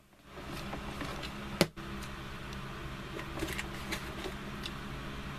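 Quiet room tone: a low steady hum with faint handling noises from a folded cardboard box, and one sharp click about a second and a half in.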